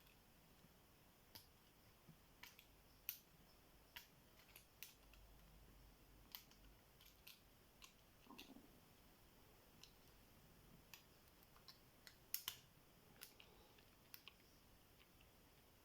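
Faint, irregular small metal clicks of a pick and tension tool working the pins of a seven-pin tubular lock as the pins are pressed down and set. The two sharpest clicks come about twelve seconds in.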